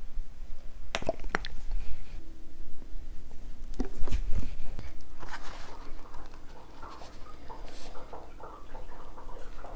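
Sub sandwich being made by hand: sharp clicks and a soft thump as sauce is squeezed from a bottle onto the fillings, then a run of small crackly rustles and crunches as the roll is closed and pressed down on the lettuce and vegetables.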